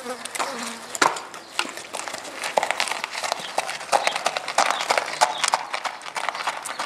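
Horse's hooves clip-clopping in a quick, even run of strikes at a trot on a hard dirt drive, as the horse is trotted in hand for a lameness trot-up.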